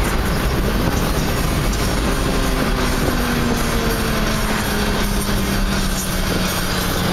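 BMW E30 driving at road speed, heard from inside the cabin: steady engine drone under heavy road and wind noise. The engine note slowly drops in pitch from about two seconds in.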